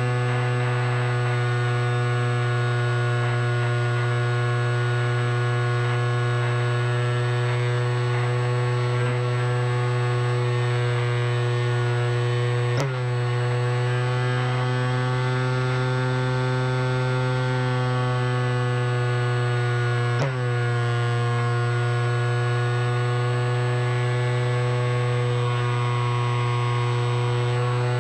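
Electric motor and propeller of a remote-controlled FPV aircraft, heard through its onboard camera: a steady hum with many overtones. The pitch drops sharply and recovers twice, about 13 and 20 seconds in.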